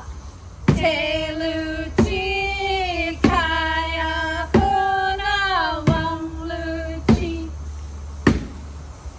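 Women singing a song in Alutiiq to a steady beat struck on an upturned plastic bucket used as a drum, one hit about every second and a quarter. The singing stops near the end while the bucket beat goes on.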